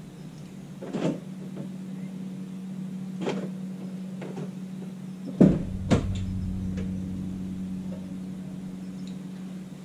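BMW Z4 M Coupe's inline-six idling steadily while still warming up from a cold start. A few sharp knocks cut through the idle, the loudest two about halfway through, after which a deeper tone joins the engine note.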